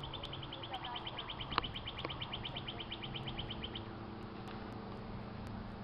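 A bird's rapid, even trill of high notes, about ten a second, that stops a little under four seconds in. A single sharp click sounds about a second and a half in.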